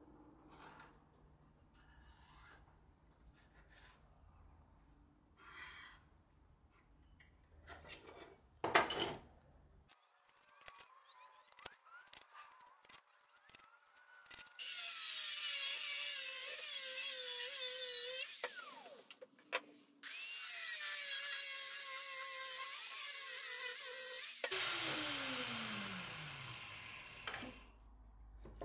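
Faint scratching of a marker tracing blade outlines on steel, then an angle grinder cutting 1084 high-carbon steel knife blanks, loud in two long runs from about halfway, and winding down with a falling whine near the end.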